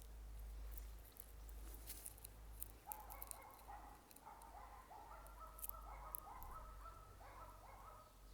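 A bird calling faintly, a quick run of short repeated notes starting about three seconds in, with scattered light clicks and a low rumble beneath.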